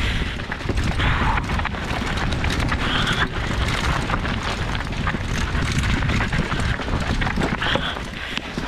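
Mountain bike descending a rocky dirt trail, heard from a helmet camera: tyres crunching over loose stones with many quick irregular knocks and rattles from the bike. Steady wind rumble on the microphone runs underneath.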